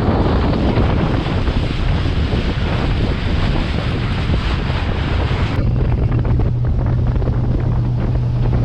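Boat running at speed: heavy wind buffeting the microphone over a steady low engine drone. The hiss eases a little about five and a half seconds in, leaving the drone more prominent.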